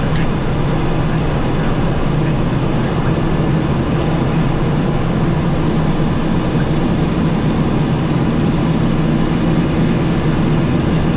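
Twin Pratt & Whitney PT6A turboprop engines of a Beechcraft King Air 250 running steadily, heard inside the cockpit as a loud, even low hum with rushing noise above it, during the landing rollout.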